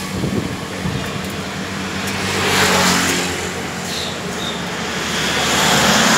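Road traffic close by: vehicles driving past with a swell of tyre and engine noise about three seconds in and again near the end, when a box truck goes by close. An engine runs steadily underneath.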